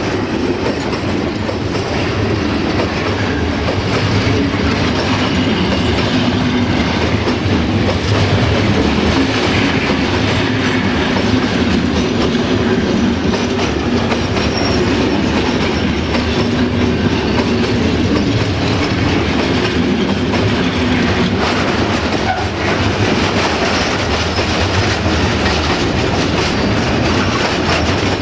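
Freight train hopper wagons rolling steadily past at close range: a continuous rumble of steel wheels on the rails with a rapid clatter of clicks.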